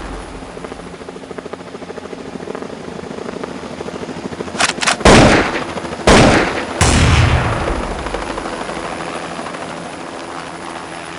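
Loud gunshot blasts in an action sound-effects mix: a few quick cracks, then three heavy shots about a second apart, each with a long fading echo, over a steady rapid chopping drone.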